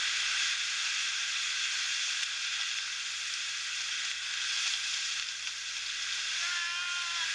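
Tsunami surge breaking and churning over a harbour: a steady, hissy rush of water. Near the end comes one short, held, pitched call.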